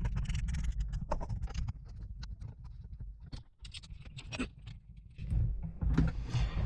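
Scattered clicks and taps of small plastic and metal parts being handled as a bolt is started into a snug-fitting 3D-printed mount, over a low steady rumble.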